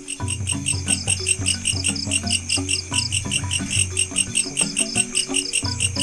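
Crickets chirping in a steady rapid pulse, about five chirps a second, over background music with a low melody.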